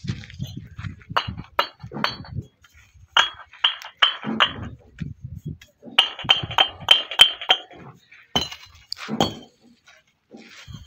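Fired clay bricks knocked against each other by hand, giving sharp clinks with a high ring. They come in several groups, the longest a quick run of about six strikes just past the middle. A clear ring like this is typical of well-fired bricks.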